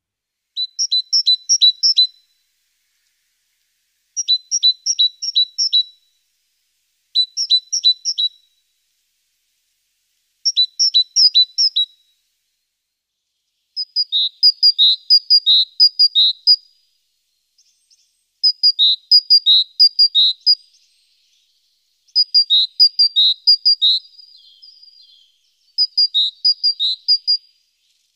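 A songbird singing about eight short phrases of quick, high, repeated notes that alternate between two pitches, with pauses of a second or two between phrases.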